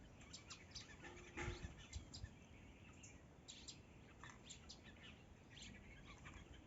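Several small birds chirping faintly, with short high chirps scattered throughout and a low bump about a second and a half in.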